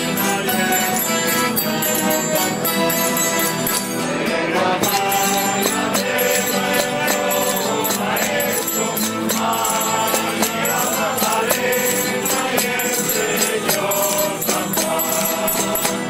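A large group of voices singing a traditional song together, accompanied by strummed guitars and an accordion, with small bells jingling along.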